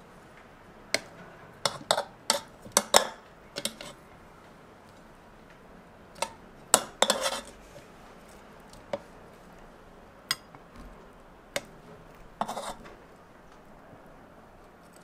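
Metal tongs clicking and clinking against a ceramic plate as air-fried chicken drumettes are set down on it: scattered sharp taps, bunched in the first few seconds and again around seven seconds in, then single taps and a short rattle before they stop.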